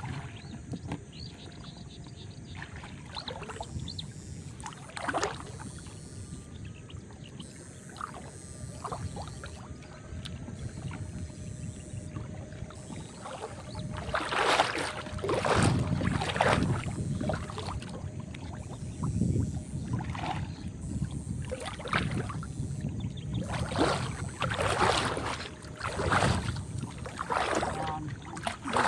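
Water splashing and sloshing over a steady low rumble. The splashes are scattered at first, then come thick and louder through the second half.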